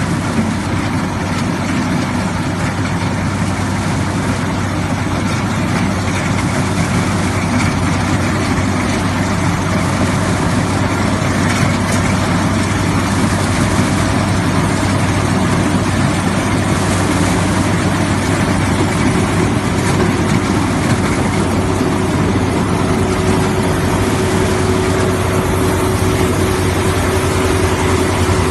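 Combine harvester's heavy diesel engine running steadily in a rice field, loud and unbroken, with a steady whine joining about two-thirds of the way through.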